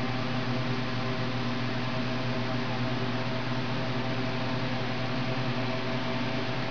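Steady hum and whoosh of refrigeration fans and machinery in a produce storage cooler: an even hiss with a constant low hum and a few fixed tones, unchanging throughout.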